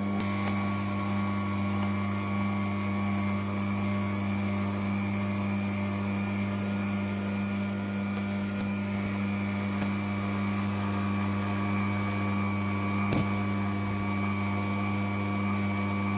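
Slow masticating juicer's electric motor running steadily with an even low hum and a faint high whine, one short click about thirteen seconds in.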